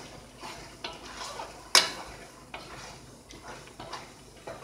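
Wooden spoon stirring and tossing spaghetti and sliced sausage in a large pot: soft scraping with scattered light knocks of the spoon against the pot, one louder knock a little before the middle.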